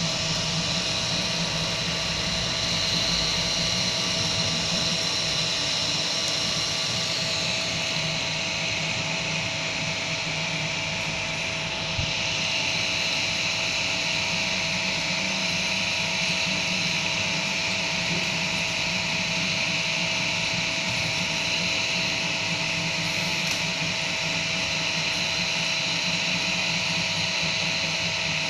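Kingroon FDM 3D printer running mid-print: a steady whirr of cooling fans with the stepper motors' high whining tones, which shift in pitch every few seconds as the head and bed move.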